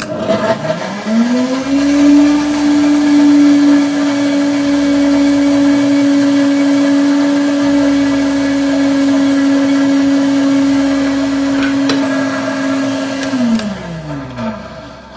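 Countertop blender inside a clear sound-enclosure hood, blending frozen banana, avocado, peanut butter and almond milk into a thick smoothie. The motor spins up over about a second to a steady high hum, then winds down near the end.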